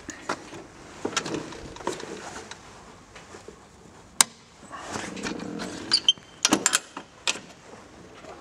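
Scattered clicks and knocks from hands and the camera moving over the control panel of a gas-turbine ground power unit, with one sharp click about four seconds in and a cluster of knocks near the end.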